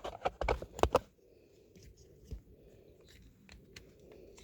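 A quick run of clicks and crinkles as parts and packaging are pulled out of a small box, lasting about a second, then only faint room noise with an odd soft tick.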